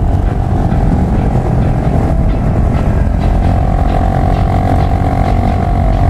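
Motorcycles riding at road speed, with steady low wind rumble on the bike-mounted microphone over the engines' hum. A whining engine tone rises a little and grows stronger about halfway through.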